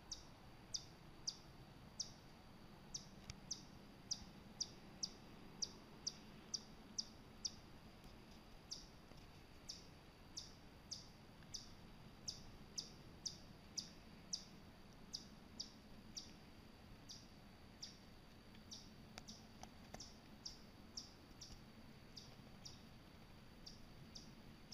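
A small animal's high, sharp chip call repeated over and over, about one and a half to two chips a second at an uneven pace, with a brief pause midway.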